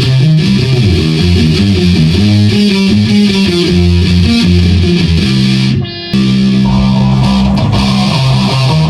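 Rock music with distorted electric guitar and bass guitar, playing loudly. About six seconds in it drops out briefly and sounds muffled for a fraction of a second, then comes back in.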